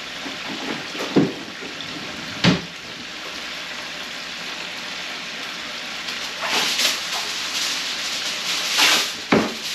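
Chicken deep-frying in hot canola oil, a steady sizzle throughout. Two sharp knocks come about one and two and a half seconds in, and a sheet of kitchen wrap crackles as it is pulled from its box, about six and a half and nine seconds in.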